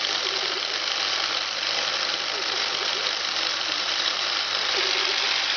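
CNC-converted Hobbymat BFE65 bench milling machine running steadily: a continuous even mechanical noise with a low hum underneath.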